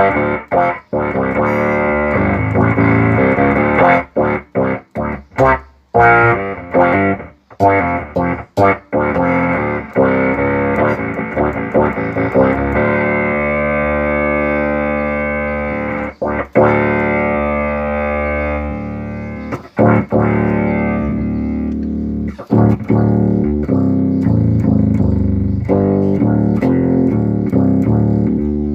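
Electric bass played through an Electro-Harmonix Bass MicroSynth pedal, giving a filtered synth bass tone, here working again after repair of overvoltage damage. Short, choppy notes with sharp gaps in the first ten seconds give way to longer held notes.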